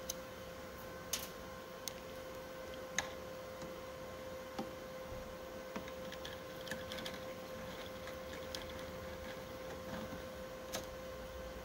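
Screwdriver working the small screws that hold the ink pump to its drive unit: scattered light clicks and taps of the tool on the screws and metal frame, about one every second or so, over a steady electrical hum.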